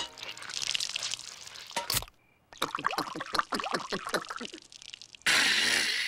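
Cartoon liquid sound effects: soft trickling, a click, then a run of quick gurgling, bubbling strokes, and a sudden loud rush of noise about five seconds in.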